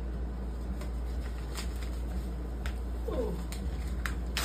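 Paper card and envelope handled and rustled in the hands, a few short crisp crackles, over a steady low hum. A brief falling voice sound about three seconds in.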